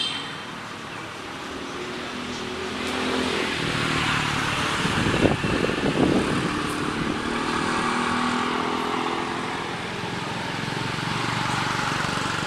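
A motor vehicle's engine passing, growing louder toward the middle and then fading, over steady outdoor traffic noise.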